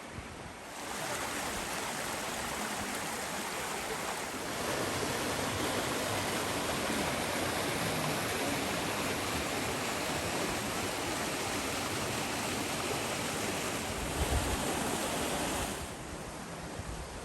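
Steady rushing of water in a mountain stream. It grows louder in steps about one and about four seconds in, and drops back near the end.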